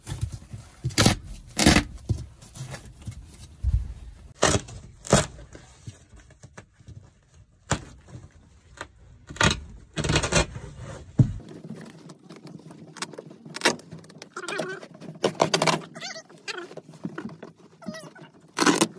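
Old carpet and foam padding being torn up by hand from a motorhome floor: a run of irregular ripping and tearing noises.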